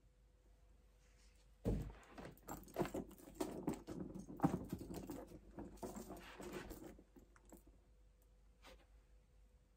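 A handbag being handled: rustling and small metallic clinks and clicks for about five seconds, then a single click near the end.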